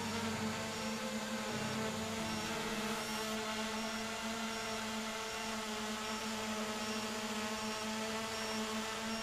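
Quadcopter's EMAX 2306 brushless motors spinning Gemfan 7-inch two-blade props, humming steadily as it hovers, a buzz of several steady tones that shift slightly in pitch. A faint high beep repeats about twice a second.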